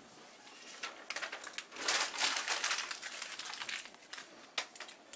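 Paper rustling and crinkling as hands work sheets of paper on cardboard boards, busiest and loudest in the middle, with one sharp click near the end.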